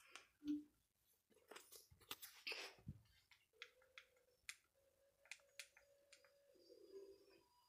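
Near silence, broken by faint scattered clicks and rustles, with a faint steady tone coming in about halfway through.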